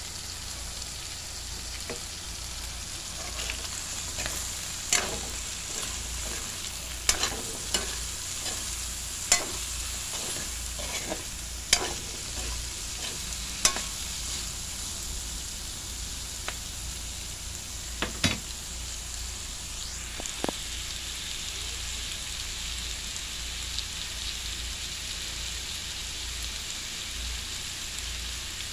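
Sliced sausage, chicken, onion and chili sizzling in a hot wok while a metal spatula stirs them, clinking and scraping against the pan. The clinks come often in the first half and thin out after about eighteen seconds, leaving a steady sizzle.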